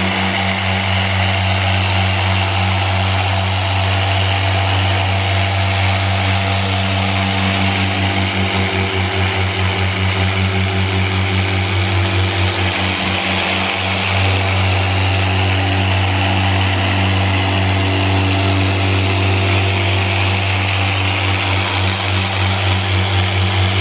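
Harbor Freight 6-inch variable-speed dual-action polisher running continuously at its highest speed setting, its foam pad working polish into car paint. A steady hum that wobbles rhythmically in level.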